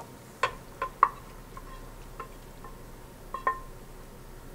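Wooden spatula knocking and scraping against a frying pan, with the pan clinking on the rim of the pot, as mushrooms and bell pepper are scraped in: about eight light knocks with a short ring, the loudest about a second in.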